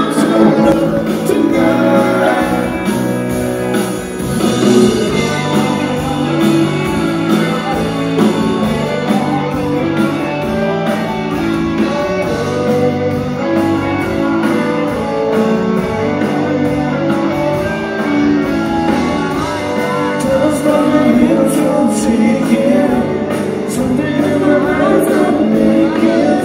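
Rock band playing live, with singing over a steady drum beat.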